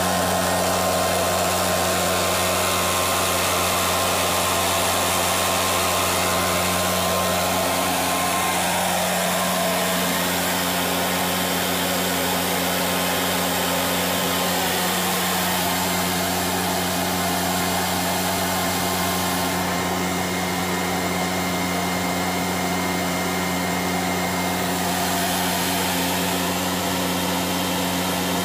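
Williams WR27 aircraft APU gas turbine running steadily at governed speed, a loud even rush with a steady low hum. The hum comes from its load compressor stalling because the bleed air system is closed off.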